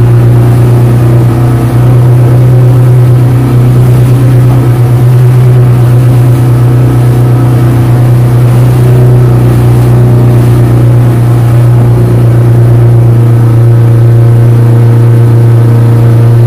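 Yamaha 115 outboard motor running at a steady cruising speed under way, heard from inside the boat's wheelhouse as a loud, even drone.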